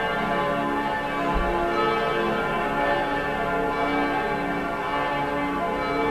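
Several church bells ringing at once, their overlapping tones sounding continuously without a pause: the Sunday-morning call to Mass.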